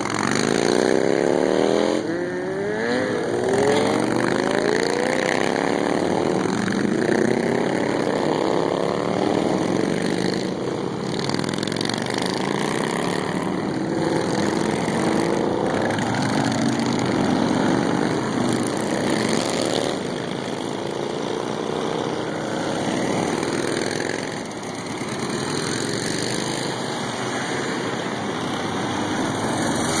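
A procession of motorcycles, sport bikes and cruisers, accelerating past one after another. Each engine's pitch rises as it revs up, so the rising sweeps overlap continuously.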